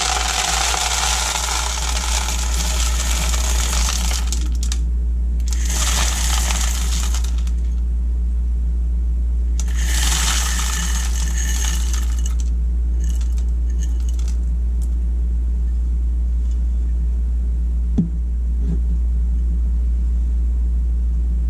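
Dried mixed beans poured from a glass jar into a plastic container, rattling and clattering in three pours: a long one at the start, a short one about 6 seconds in and another about 10 seconds in. A steady low hum runs underneath, and there is a single knock about 18 seconds in.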